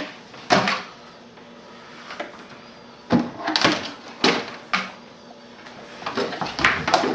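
Several separate knocks and clatters of a baby rummaging in a cupboard and pulling things out of it, a few about a second in, more in the middle and a cluster near the end.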